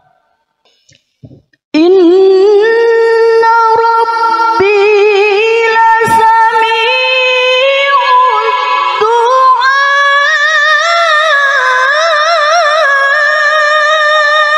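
A woman reciting the Quran in melodic tilawah style, voice amplified through a microphone. After a short pause with a breath, she comes in strongly about two seconds in on one long, high-pitched held vowel that wavers with fine ornaments, and it climbs to a higher pitch in the second half.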